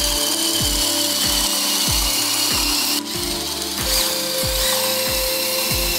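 Cordless drill spinning a wooden dowel through a jigsaw-blade dowel cutter, the blades shaving it round, under background music with a steady bass beat about every two-thirds of a second. The level drops briefly about halfway through.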